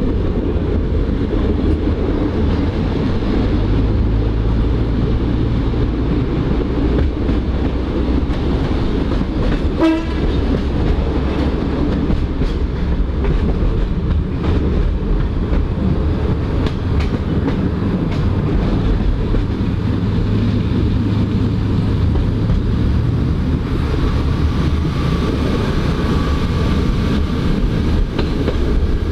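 A CPH 'Tin Hare' railmotor under way, its diesel engine running steadily with wheel and rail noise from the moving car. A short, higher-pitched sound comes about ten seconds in.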